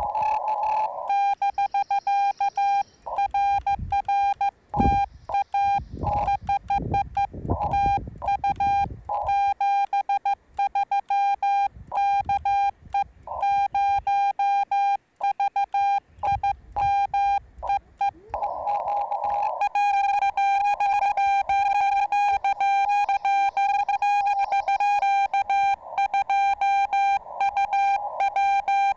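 Morse code through a Yaesu FT-891 transceiver: a single steady tone keyed on and off in quick dots and dashes, with short stretches of band hiss between transmissions. A few low thumps sound between about four and ten seconds in.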